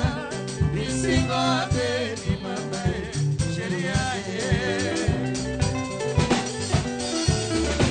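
Live band playing: men singing into microphones over electric bass guitar, guitar and a drum kit keeping a steady beat.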